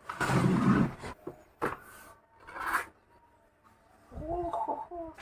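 Packaging being handled, with a burst of rustling and rubbing at the start, a sharp click about a second and a half in, and a shorter rustle a second later. Near the end comes a wavering, pitched squeak.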